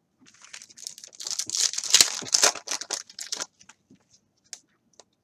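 Foil wrapper of a trading-card pack being torn open and crinkled for about three seconds, then a few light ticks as the cards are handled.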